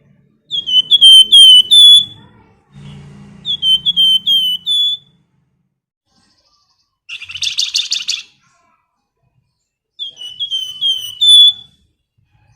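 Flamboyan songbird calling in three phrases of four or five sharp, down-slurred whistled notes, with a single harsh buzzy rattle about halfway through.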